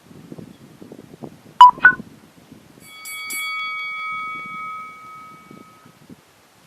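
Two sharp knocks about a second and a half in, then a bell-like chime that rings for about three seconds and fades out.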